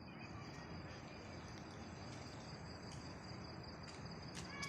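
Faint, steady high-pitched insect trill over low background noise, with a couple of short clicks near the end.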